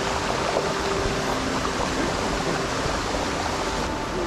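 Steady rushing of water from a creek waterfall and its cascades.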